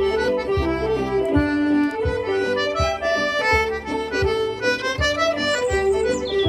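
Concertina playing a lively Irish barn dance tune: a quick run of reedy notes over a regular low beat about every 0.7 seconds.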